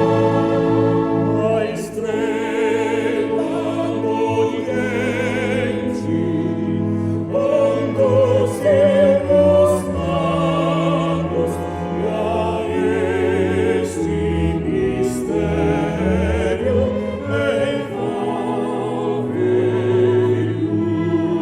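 Music: a singing voice with strong vibrato in an operatic style over sustained orchestral chords, sung in phrases that recur every few seconds.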